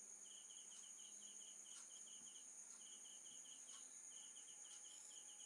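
Faint cricket chirping in quick trains of short pulses, over a steady high-pitched insect whine, with a few soft clicks.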